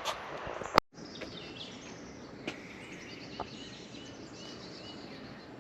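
Outdoor background noise with small birds chirping repeatedly. About a second in there is a sharp click and a moment of dead silence.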